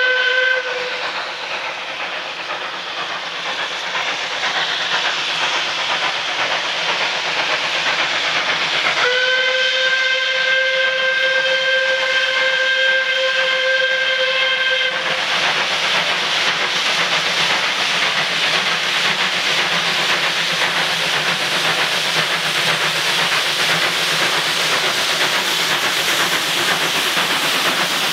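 Steam whistle of the 0-6-0 saddle tank locomotive No. 1015 'Horden': a short blast ends just after the start, then a long steady blast of about six seconds begins about nine seconds in. Under it, the steady hiss of the locomotive working its train grows louder as it approaches.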